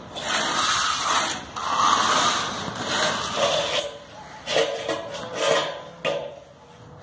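Steel hand finishing tools scraping over fresh, wet concrete: a trowel smoothing the surface in two long strokes, then shorter scrapes as an edger is run along the edge of the slab.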